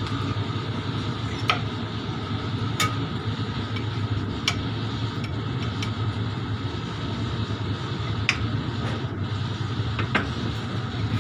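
A metal spatula and knife clinking against a steel baking tray and a ceramic plate, about five sharp clinks spread out, over a steady low mechanical hum.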